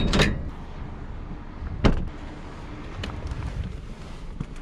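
A vehicle engine running with a low rumble, broken by three sharp knocks: at the start, just before two seconds in, and a fainter one at about three seconds.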